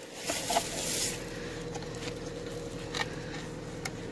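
Cardboard box rustling and scraping as a cast stone paw-print memorial is slid out of it, strongest in the first second, followed by a few light knocks as it is handled.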